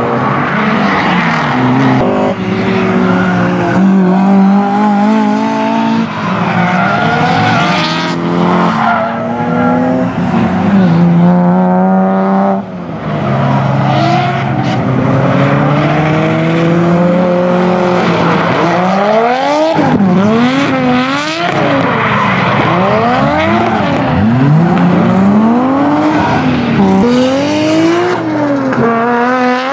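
Drift cars sliding through corners: engines revving hard, the revs rising and falling with the throttle, over tyres squealing and hissing. In the second half the revs swing up and down in quick, repeated blips.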